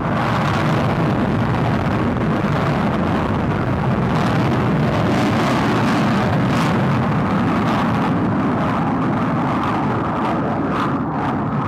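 Military jet aircraft flying over, its engine noise swelling in just as it begins and then staying loud and steady, with a rough crackle in the highs.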